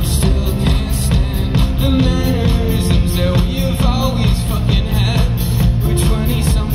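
Rock band playing live, with a steady drum beat under the full band and a sung vocal line.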